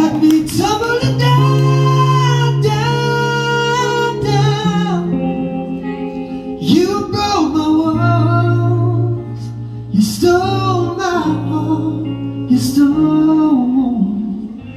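A man singing a song live into a microphone, accompanying himself on guitar, in phrases with short breaths between them.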